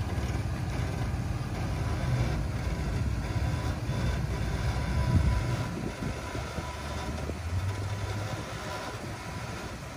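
Third-generation Toyota 4Runner's engine running at low revs as it crawls slowly over rocks, swelling louder briefly about five seconds in.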